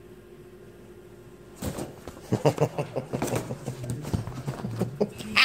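A cat batting and clawing at a thin wooden board, with a quick irregular run of knocks and scratches starting about one and a half seconds in.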